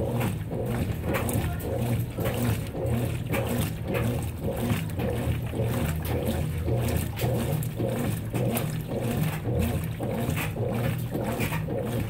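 Consul 16 kg top-load washing machine agitating a load in soapy water: a steady motor hum with rhythmic sloshing and churning, about three strokes a second.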